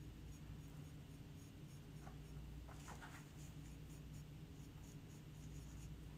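Faint scratchy strokes of a small flat paintbrush dabbing thick glaze onto a ceramic palette, a quick run of light brush taps, over a steady low room hum.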